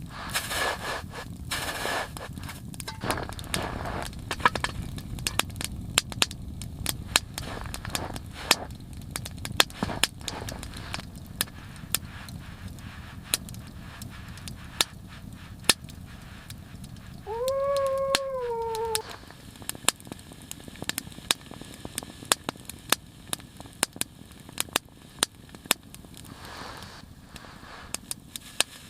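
Wood fire crackling with irregular sharp pops. About two-thirds of the way through, a puppy gives a single drawn-out whine that rises and then falls.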